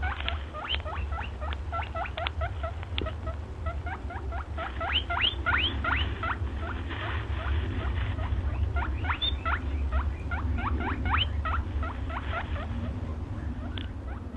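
An animal giving rapid runs of short, high, rising squeaks, several a second with a few brief pauses, over a steady low hum.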